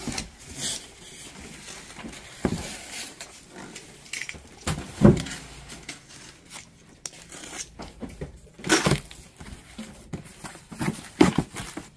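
Boxes and packaged goods being handled and moved: rustling cardboard and plastic with several irregular knocks and thumps, the loudest about five seconds in.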